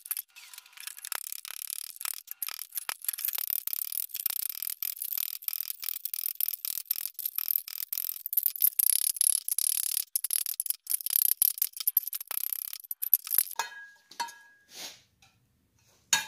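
Rounding hammer striking a forged steel skillet pan held in tongs on a swage block: rapid, steady hammer blows turning up the pan's lip. Near the end the blows stop and a few separate ringing metal clanks follow as the hammer is set down and the pan lifted.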